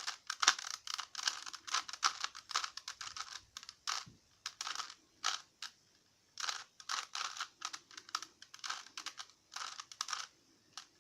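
Rubik's Cube being scrambled by hand: quick runs of plastic clicking and clacking as its layers are turned, with a short pause about six seconds in.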